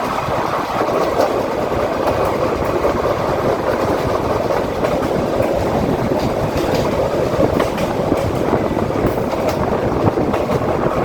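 Diesel passenger train running at speed: a steady rush of wheels on the rails with faint scattered clicks.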